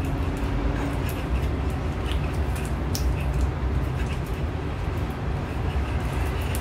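Pestle (ulekan) grinding and rubbing a wet chili-and-palm-sugar paste in a stone cobek mortar: a steady low grinding rumble with scattered small clicks of stone on stone.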